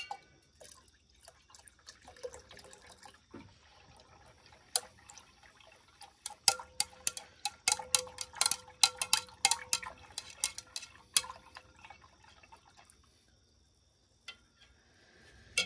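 Glass stirring rod clinking rapidly against the side of a glass beaker as liquid is stirred, with faint sloshing. It is hydrochloric acid being stirred into a silver solution to precipitate silver chloride.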